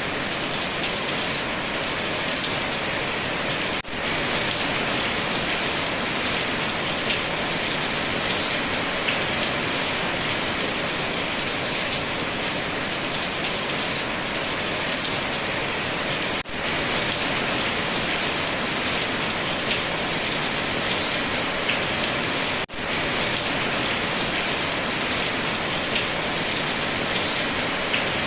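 Steady, dense rain falling on a surface: an even hiss of many drops, briefly dipping three times.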